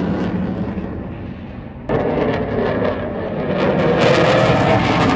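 Loud, rumbling noise of jet aircraft flying overhead. It fades over the first two seconds, jumps back up abruptly about two seconds in, and grows louder again near the end.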